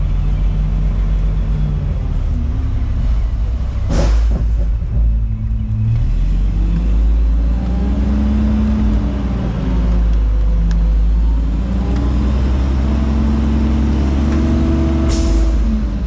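Front-load garbage truck's diesel engine running loud and low, its pitch rising and falling as it revs. A single sharp bang about four seconds in and a short hiss of air near the end.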